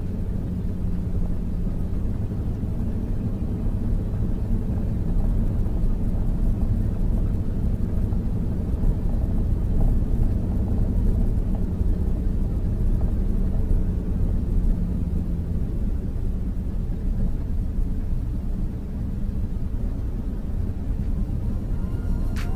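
Steady low rumble of a vehicle driving, engine and road noise, with a faint hum that drifts slightly in pitch.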